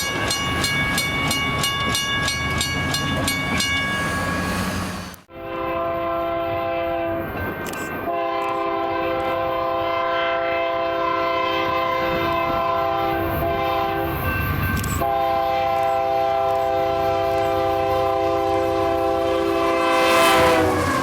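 A railroad grade crossing bell ringing at about three strokes a second while a train passes. Then a Union Pacific freight locomotive's multi-note air horn sounds three long blasts with short breaks between them, the last one dropping in pitch at the end as the locomotive goes by.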